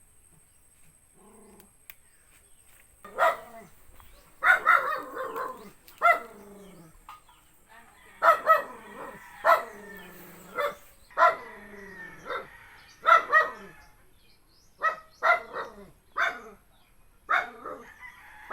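A dog barking over and over from about three seconds in: short, sharp barks, some single and some in quick pairs, each dropping in pitch.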